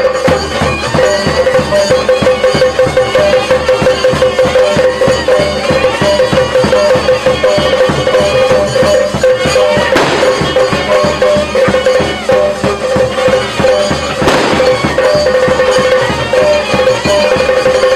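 Yakshagana background ensemble: chande and maddale drums beat a fast, dense rhythm over a steady drone for a battle dance, with two louder crashing strokes, about ten and fourteen seconds in.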